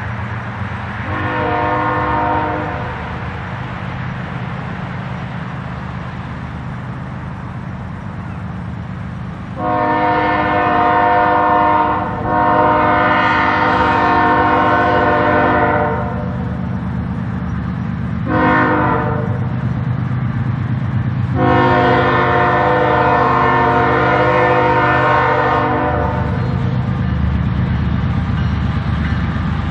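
An approaching diesel freight locomotive's air horn: one short blast, then the grade-crossing signal of long, long, short, long. A low rumble runs underneath.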